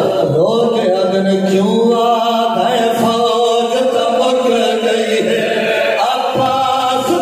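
Men's voices chanting a Saraiki noha, a Muharram lament sung without instruments: a lead reciter with a second voice joining in.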